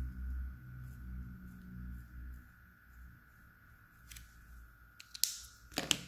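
Quiet handling sounds at a craft table. A faint low hum fades out about halfway through, and near the end come a few sharp clicks and a short rustle as plastic markers are set down on a plastic tray and a paper napkin is handled.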